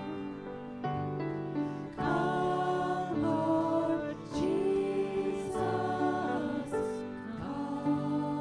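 Slow music with a singing voice over held chords, the voice bending and wavering on long notes.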